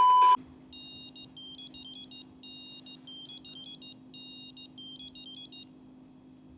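A GPS dog tracker collar's small speaker plays its sound: a short, loud beep at the start, then a faint, high electronic beeping tune that repeats in about five phrases and stops near the end. A steady low hum runs underneath.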